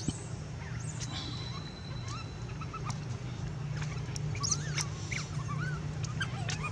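Long-tailed macaques giving short, high squeaks and chirps, many scattered calls that rise and fall in pitch and come thicker in the second half, over a steady low hum.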